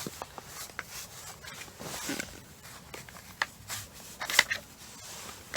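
Scattered clicks, knocks and rustles of equipment being handled, with a louder cluster of clicks a little past four seconds in: the new ice auger being readied.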